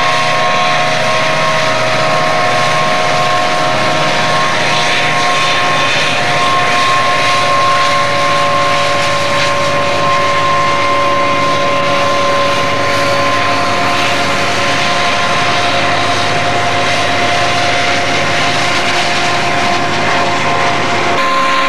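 Several Rio Grande diesel freight locomotives passing close by, their engines running with a low rumble and a steady whine at several pitches, followed by boxcars rolling past.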